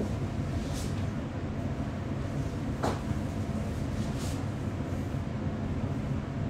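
Steady low background rumble picked up by a phone microphone, with a single light click about three seconds in.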